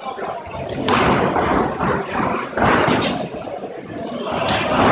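Kicks and punches landing in a kickboxing bout: about three hard thuds, each followed by a smear of hall echo.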